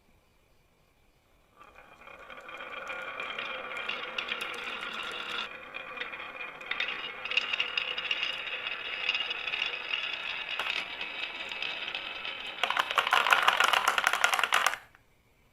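Marbles rolling and clattering down a marble run track: a continuous rattle of many small clicks that starts about a second and a half in, grows louder near the end and stops suddenly.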